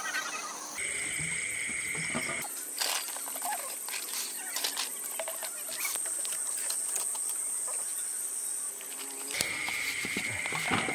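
Night insects chirring in steady, high continuous tones, a second lower chorus joining in at times. Light clicks and taps sound through the middle.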